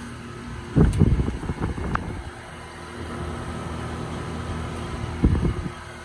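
2003 Bryant Puron 533G outdoor condensing unit running, with its Bristol H89B compressor and condenser fan giving a steady hum. Two bursts of low buffeting hit the microphone, about a second in and again near the end, louder than the unit.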